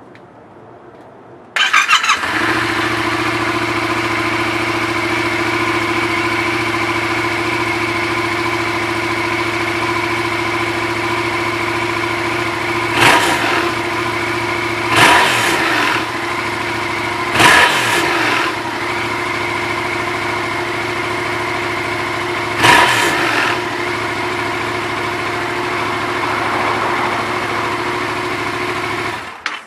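Yamaha MT-07 (FZ-07) parallel-twin engine with an Akrapovič carbon exhaust, dB killer fitted: it starts about a second and a half in, idles steadily, is revved briefly four times, and is shut off just before the end.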